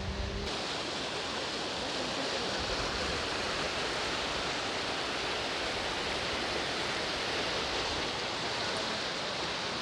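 Steady rush of a waterfall's falling water, a low rumble cutting off abruptly about half a second in.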